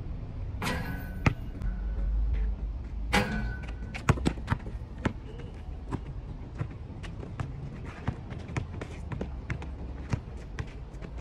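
A basketball bouncing on a hard outdoor court during play, a run of sharp, irregular thumps as it is dribbled.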